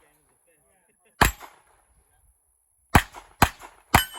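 Four gunshots, each followed by a short echo: one about a second in, then three in quick succession near the end, about half a second apart.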